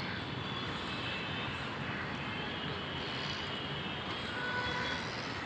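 Steady hum of city traffic on a main road, an even wash of noise with a few faint short tones over it.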